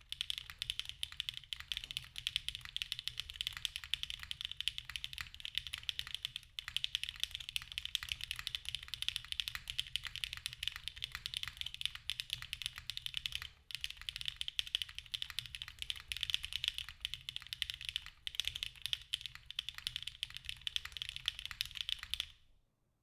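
Rapid continuous typing on a Sagrada HHKB-layout mechanical keyboard with Krytox-lubed KTT Strawberry V2 linear switches and GMK Civilizations keycaps. There are a couple of brief pauses, and the typing stops just before the end.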